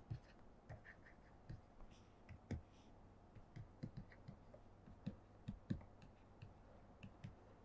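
Faint, irregular clicks and taps of a stylus writing on a tablet screen.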